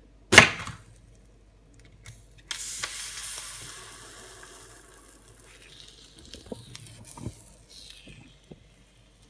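A sharp crack as a heated kitchen knife breaks through a raw egg's shell, then about two seconds later a hiss that starts suddenly and fades over a few seconds: the hot blade sizzling in the raw egg. A few light knocks near the end.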